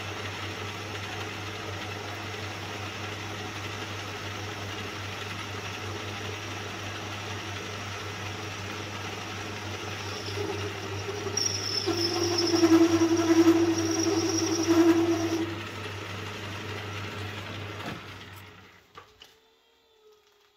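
Old belt-driven metal lathe running with a steady low motor hum while turning an axle. From about ten to fifteen seconds in the cutting tool bites, making it louder with a high singing whine. A few seconds before the end the lathe is switched off and spins down to quiet.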